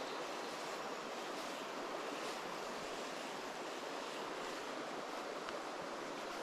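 River water rushing steadily over rocks, an even unbroken noise.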